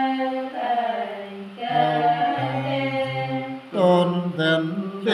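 Men singing unaccompanied, a slow chant-like song in long held notes that slide from one pitch to the next, with short breaks between phrases.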